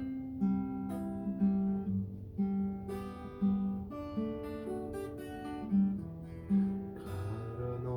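Acoustic guitar playing a song's instrumental intro, a fresh chord or note sounding about once or twice a second and ringing on.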